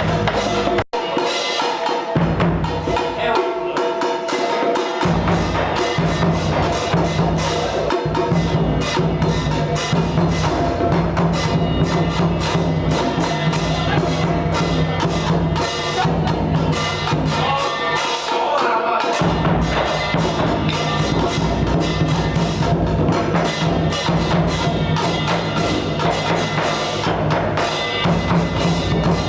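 Music with percussion, a wood block and drums keeping a steady beat, with a momentary dropout about a second in.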